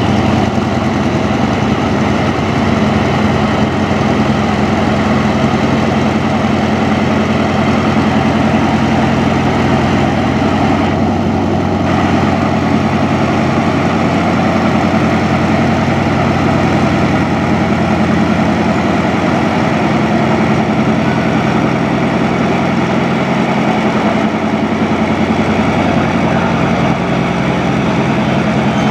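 Diesel train engine running steadily, a low even drone that neither rises nor falls.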